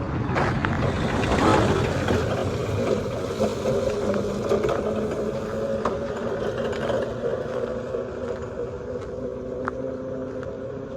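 A motor vehicle's engine running close by: a loud rush about a second or two in as it goes past, then a steady engine hum that slowly fades.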